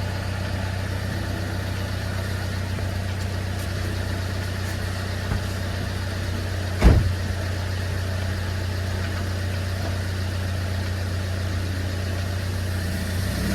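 A car engine idling steadily, with a single sharp knock about seven seconds in.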